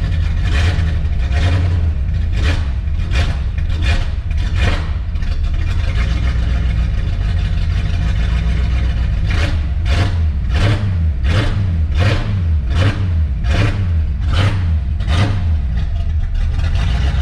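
Fox-body Ford Mustang engine idling with a loping rhythm, a sharp exhaust pulse about every three quarters of a second over a steady low rumble. It is running on a freshly fitted fuel pump and has not yet been tuned.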